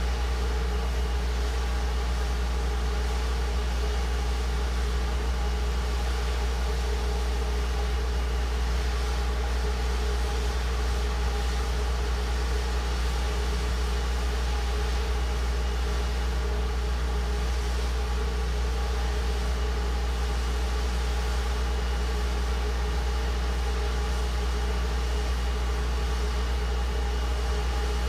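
Kohler 24RCL propane-fuelled, water-cooled 1800 RPM standby generator running at a steady speed, a constant low engine hum.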